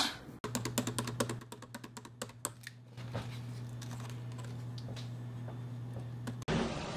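Typing on a computer keyboard: a quick, irregular run of key clicks for about two and a half seconds, then a few scattered clicks, over a faint, steady low hum.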